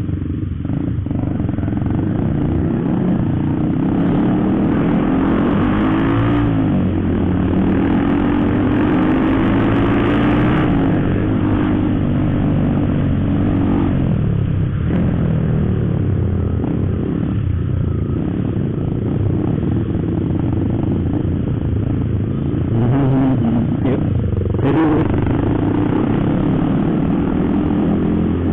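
Motorcycle engine running under way, its pitch rising and falling several times as the rider accelerates and eases off, over a steady rush of wind and road noise.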